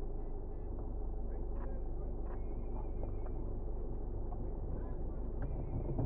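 Steady rumble of a car being driven, engine and road noise, with a few faint ticks.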